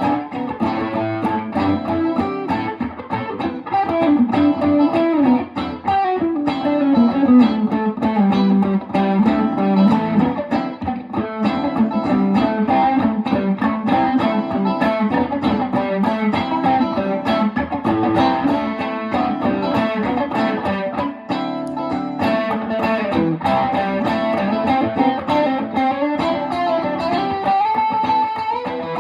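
Electric guitar played solo in a continuous stream of quick melodic runs and chords, the notes moving up and down in pitch without a break.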